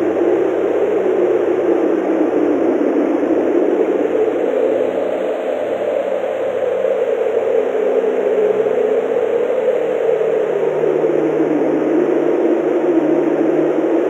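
Strong snowstorm wind blowing through forest trees, a steady rushing howl whose pitch drifts up a few seconds in and settles back down near the end.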